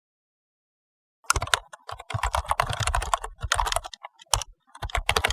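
A rapid, irregular run of clicks and taps that starts about a second in and stops abruptly near the end.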